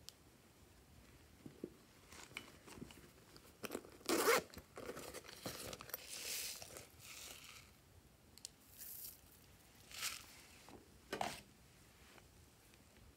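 Hands handling and working open a pink plastic bear-shaped container: scattered scrapes, rustles and clicks of plastic. The loudest is a sharp knock about four seconds in, followed by a longer rasping scrape, with further short knocks around ten and eleven seconds.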